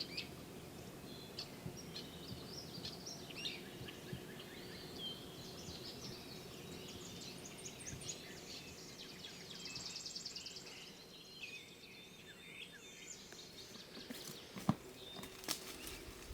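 Faint songbird chorus, many short chirps and whistled phrases overlapping, with a fast trill about ten seconds in. A few soft knocks come near the end.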